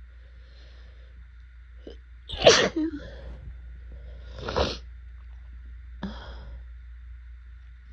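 A woman sneezing during a pollen-allergy fit: two sudden, loud sneezes about two seconds apart, the first the loudest, then a weaker third about a second and a half later.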